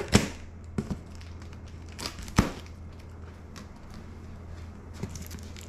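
A few sharp clicks and knocks as a knife and hands work at the plastic packing straps on a cardboard box, over a low steady hum.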